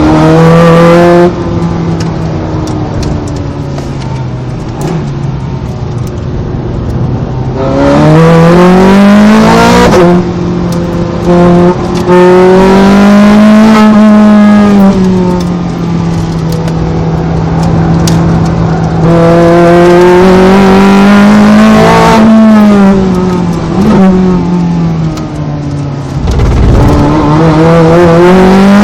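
Ferrari 430 Scuderia's 4.3-litre V8, heard on board while it is driven hard on a track. The engine pulls loudly up through the revs several times, its pitch climbing on each pull, with quieter off-throttle stretches and falls in revs between them for the corners.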